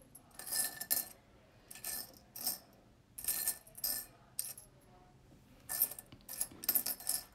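Small beads and metal charms clinking and clicking against each other and their containers as they are picked through, in several short clusters.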